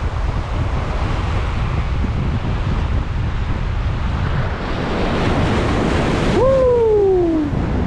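Strong wind buffeting a GoPro Hero 9's built-in microphone over surf washing against rocks; the surf swells louder about five seconds in. Near the end, a single tone glides down in pitch for about a second.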